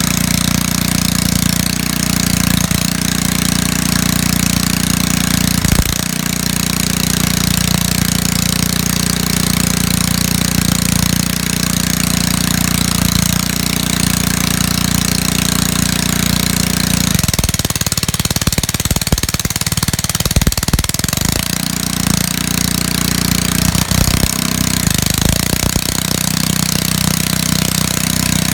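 1.7 kW petrol generator running steadily under electrical load. About two-thirds of the way through, its even hum turns rough and uneven for several seconds before settling again.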